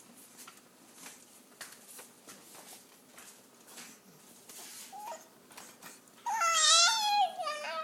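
A baby sings in a high, wavering voice. After several seconds of soft noises, a short note comes about five seconds in, then a loud warbling note of more than a second near the end, with a brief note after it.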